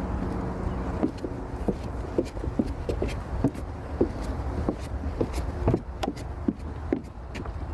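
Outdoor ambience: a steady low rumble with a vehicle engine's hum that fades out about a second in, then irregular light clicks and crunches a few times a second.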